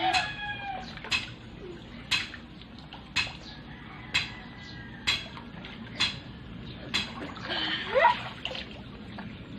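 Sharp ticks about once a second, evenly spaced like a ticking clock timing the breath-hold. Near the end comes a rising voiced gasp with some water splashing as a child surfaces from the pool.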